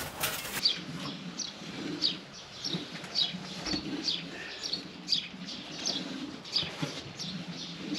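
Small birds chirping: a steady string of short, high, falling chirps, about two a second.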